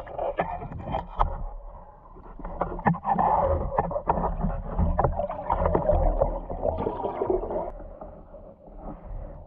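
Muffled underwater sound picked up by an action camera in its waterproof housing: water rushing and gurgling over a low rumble, with scattered sharp clicks and knocks. The rushing swells for several seconds in the middle, then dies down near the end.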